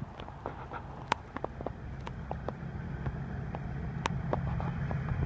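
Pair of DRS Class 37 diesel locomotives with English Electric V12 engines approaching from a distance: a low engine rumble growing steadily louder, with scattered sharp clicks over it.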